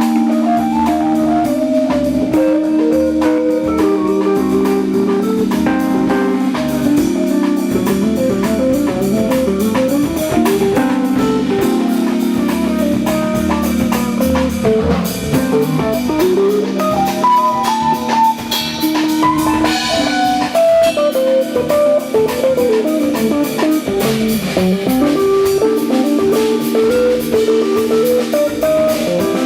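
Instrumental band music: a guitar plays a moving melodic line over sustained keyboard chords, with a drum kit keeping time.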